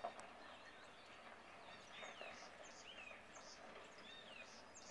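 Faint outdoor birdsong: a few short, high calls that slur downward, starting about two seconds in, over a quiet background hiss.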